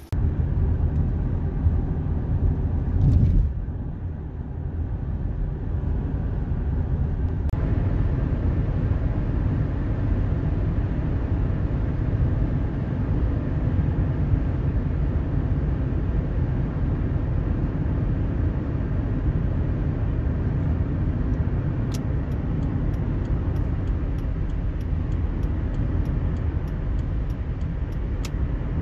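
Minivan driving at highway speed, heard from inside the cabin: a steady low rumble of road and engine noise, with a brief louder rush about three seconds in. Faint regular ticking, about two a second, joins near the end.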